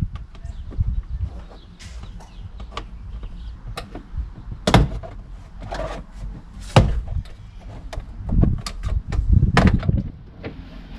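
Irregular sharp clicks and knocks of a truck's inside door trim panel being pried loose, its plastic retaining clips popping free and the panel knocking against the door. The loudest snaps come about five, seven, eight and a half and nine and a half seconds in.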